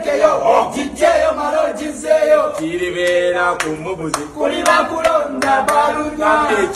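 A group of voices chanting and singing together in rhythm, with sharp hand claps throughout.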